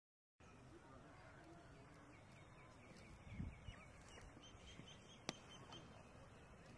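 Faint open-air ambience with birds chirping, a low thud about three and a half seconds in, and a single sharp crack a couple of seconds later: a cricket bat striking the ball.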